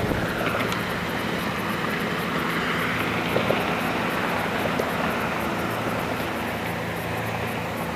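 Road traffic: a passing vehicle's tyre and engine noise swells over the first few seconds and fades toward the end, over a steady low hum.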